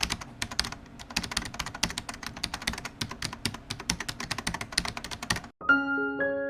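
A fast, uneven run of computer-keyboard typing clicks that stops abruptly about five and a half seconds in; gentle piano music begins just after.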